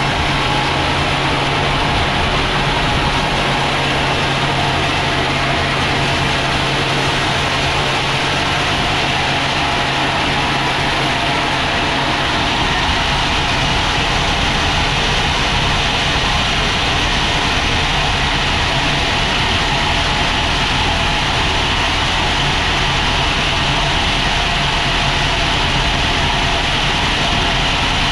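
Sawmill machinery running steadily: an engine drone under a constant, even noise, with no pauses.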